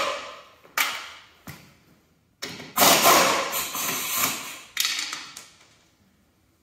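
Pneumatic impact wrench with a 3/4-inch socket run in several short bursts to loosen a tractor wheel's lug nuts; the longest burst, about a second and a half, comes near the middle.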